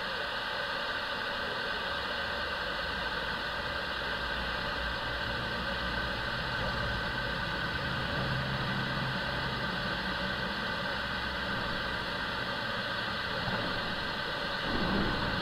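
Twin-engine jet airliner's engines running as it rolls out along the runway after touchdown: a steady whine over a low hum that swells for a few seconds midway.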